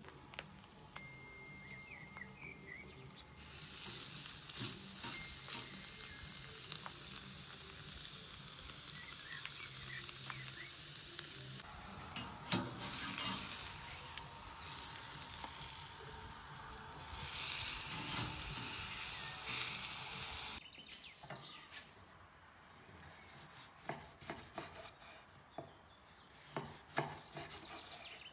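Beef steak sizzling on a grill grate over hot charcoal: a loud steady hiss that starts a few seconds in, with a sharp click of metal tongs partway through. In the last several seconds, quieter scraping ticks of a knife slicing cooked steak on a wooden cutting board.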